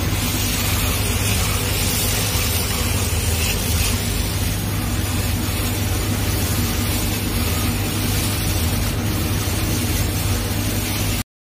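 Laser cutting machine running while it cuts a gold mirror acrylic sheet: a steady rushing of air over a low hum. It cuts off suddenly near the end.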